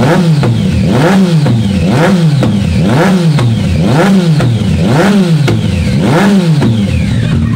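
Yamaha MT-09's three-cylinder engine breathing through a full Akrapovic exhaust system, revved in quick blips about once a second, each rise in pitch falling straight back. A sharp pop or crackle sits at the top of each blip.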